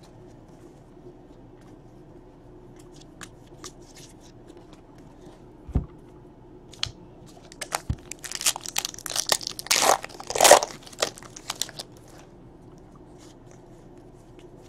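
Wrapper of a 2017 Donruss baseball card pack being torn open by hand: a burst of crinkling and tearing about eight seconds in that lasts some three seconds, loudest near its end. Before it, light scattered clicks of cards being handled.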